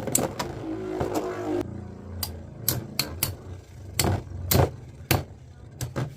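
Two metal Beyblade spinning tops whirring in a plastic stadium and clashing, giving sharp clicks at irregular intervals about every half second.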